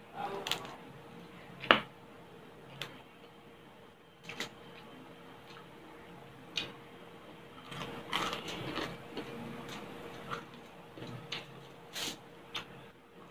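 Close-up crunching and chewing of crispy fried pork belly, with irregular sharp crackles as the crisp skin is torn by hand and bitten. A single loud crack comes near two seconds in, and a dense run of crunching about eight seconds in.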